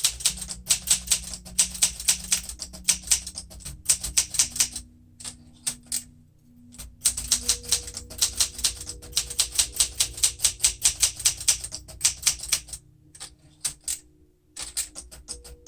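Olympia SM9 manual portable typewriter being typed on in quick runs of key strikes, several a second. There is a pause about five seconds in, then another long run, tailing off into a few separate strikes near the end.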